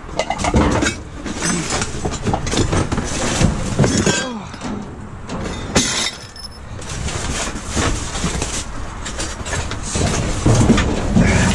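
Rummaging through dumpster junk: a wooden crate, cardboard and scrap metal parts being shifted and dropped, with repeated knocks, clatters and rustling against the metal dumpster walls.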